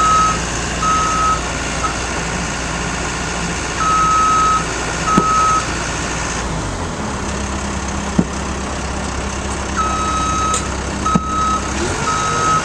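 Cat skid steer's backup alarm beeping in short pairs over its running diesel engine, whose note shifts about halfway through. A few sharp clanks are heard.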